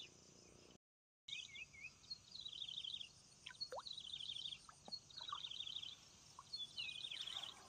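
A bird calling in short rapid chattering trills, repeated about five times roughly a second apart, over faint steady outdoor background noise. About a second in, the sound drops out completely for half a second.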